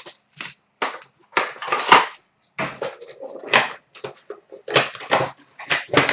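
Irregular run of short crinkling, tearing and rustling sounds, about two or three a second: trading-card packs and their foil wrappers being ripped open and the cards handled.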